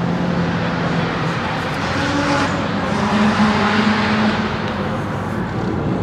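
Car engines running nearby. One engine note holds steady, then a higher note swells and fades about midway, like a car passing.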